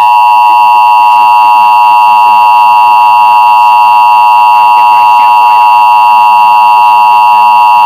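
Emergency Alert System attention signal: a loud, steady two-tone electronic alert tone (853 and 960 Hz) held for about eight seconds, cutting off abruptly near the end.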